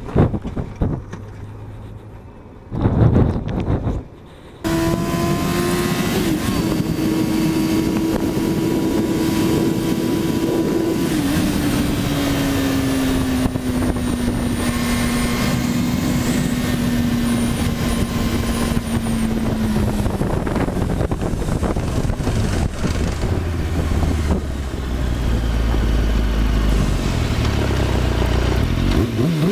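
Sport-bike inline-four engine at high road speed, heard from the rider's seat over steady wind rush. Its pitch holds, then slowly falls as the bike eases off, with heavy low rumbling near the end.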